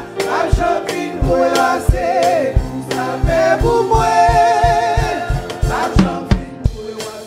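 Live Haitian Creole gospel music: singers and band, over a steady low beat of about three strokes a second. A held, wavering note stands out around the middle.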